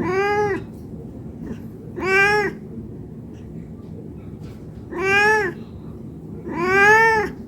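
Domestic cat meowing four times, each meow about half a second long and rising then falling in pitch. These are a hungry cat's meows begging for food.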